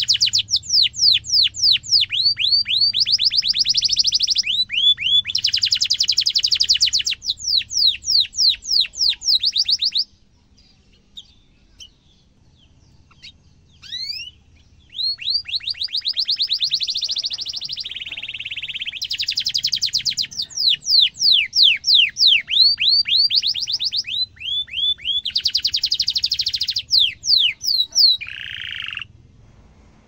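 Domestic canary singing long rolling trills of fast, repeated sweeping notes, in phrases. The song breaks off for about five seconds in the middle, with only a few faint chirps, then resumes and stops near the end.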